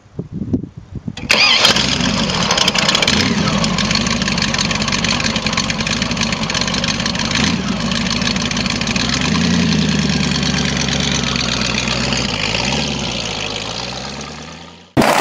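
Big-engined custom motorcycle cranked over by its starter, catching about a second in and then idling loudly. The revs rise and fall briefly a couple of times, and the sound fades as the bike pulls away.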